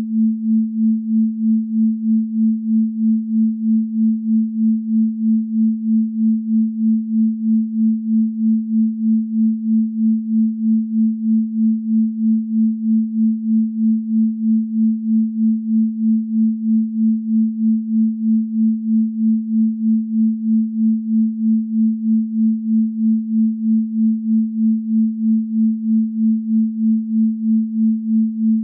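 A pure sine tone at about 221 Hz, the 'Venus frequency', held steady in pitch. It pulses evenly in loudness about twice a second.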